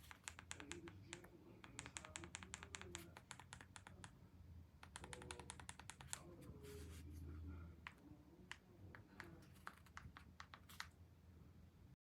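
Faint rapid clicking of a universal TV remote's buttons being pressed, in quick runs of several clicks a second with scattered single clicks between.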